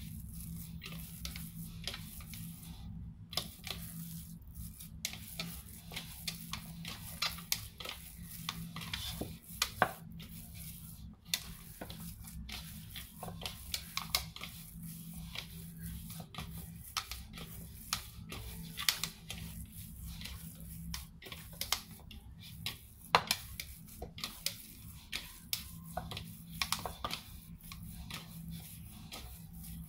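Bread dough being kneaded by hand in a bowl, the dough now coming together and no longer sticking: irregular knocks and taps as it is pressed and pushed against the bowl. A steady low hum runs underneath.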